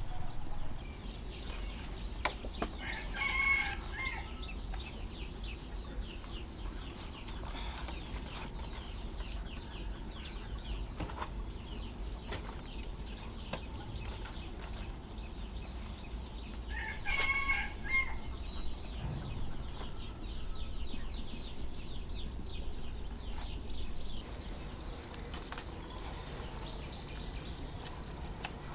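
Chickens on a farm: two short bouts of calling, about three seconds in and again about seventeen seconds in, over constant light scratching and rustling.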